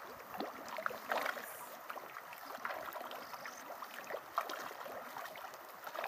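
Pond water splashing and lapping in many small, irregular splashes, with feeding tilapia breaking the surface.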